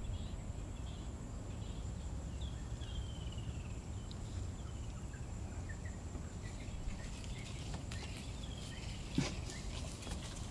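Outdoor bush ambience: a steady high insect tone over a low rumble, with a bird's falling series of chirps twice. A brief knock about nine seconds in.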